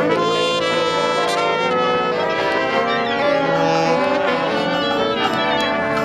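A live brass street band playing a tune together: trumpets, trombone, saxophones and sousaphone with an accordion, many notes sounding at once and moving together.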